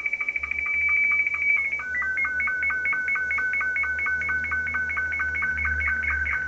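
Slow-scan television (SSTV) image signal from Ham Radio Deluxe's SSTV module, being transmitted on 10 meters: electronic tones pulsing in a fast, even rhythm. It holds one high steady tone for about two seconds, then switches to two tones alternating several times a second as the picture is sent line by line.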